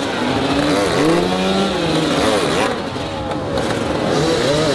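Several hard enduro dirt bikes revving in overlapping bursts, their pitch rising and falling, as the riders fight their way over a tyre obstacle.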